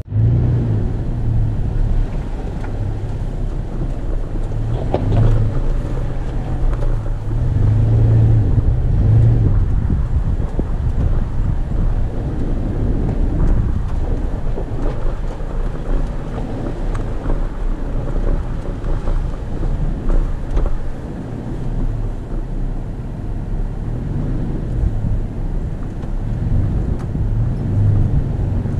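Toyota FJ Cruiser's 4.0-litre V6 running at low speed as the truck crawls over a rocky dirt trail. The engine hum swells and eases over uneven ground, with tyres crunching on rock and gravel.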